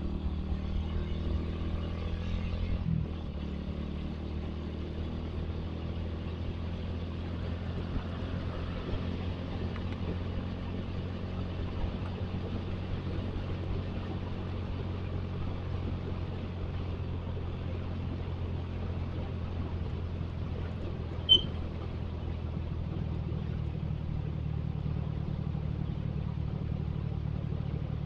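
Suzuki Satria FU motorcycle's single-cylinder engine running at a steady cruise, with road and wind noise. One short high beep about two-thirds of the way through.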